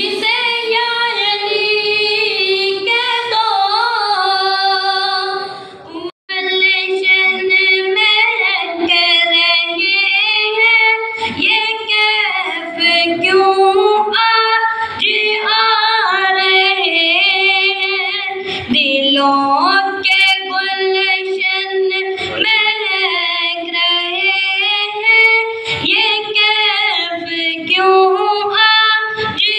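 A boy's high voice singing an unaccompanied devotional recitation into a microphone, in long, wavering, ornamented phrases. The voice breaks off for a moment about six seconds in, then carries on.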